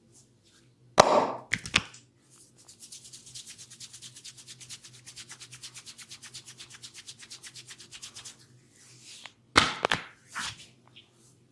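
Hands massaging bare skin: a few loud, sharp cracks about a second in, then several seconds of fast, even rubbing or tapping strokes, several a second, then another cluster of sharp cracks near the end.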